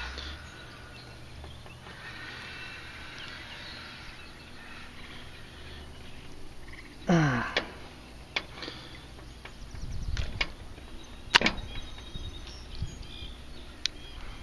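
Quiet lakeside handling sounds: a few sharp clicks and faint rumble as hands work a hook and soft-plastic craw out of a largemouth bass's mouth. About seven seconds in, a short call falls steeply in pitch, the loudest sound in the stretch.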